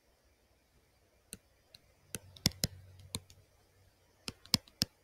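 A stylus clicking and tapping on a pen tablet while numbers are handwritten: about nine separate sharp clicks, most of them between about one and a half and three seconds in and a quick run of three near the end.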